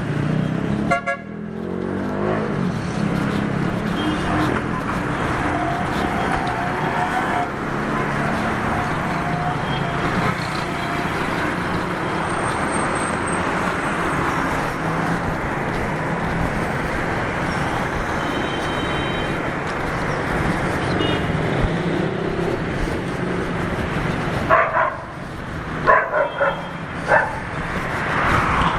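City street traffic: vehicle engines running and passing in a continuous din. Several short, loud pitched sounds come near the end, with a briefer one about a second in.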